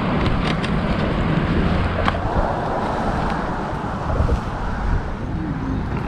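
Riding noise from a Rad Mini e-bike on a paved trail: a steady rush of wind and tyre noise, with a few sharp clicks or rattles in the first half-second and again about two seconds in.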